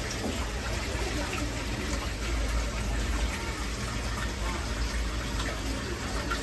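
Steady running water with a low hum from the pumps and filters of the turtle tanks.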